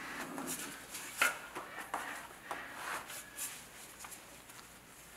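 Gloved hands handling and repositioning a leg of a Digit humanoid robot on a rubber assembly mat. Rustling with several light knocks and clicks over the first three and a half seconds, then fading.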